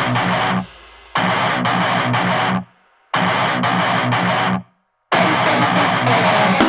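Heavy metal track: a distorted electric guitar riff played without the drums, in short phrases broken by three sudden stops.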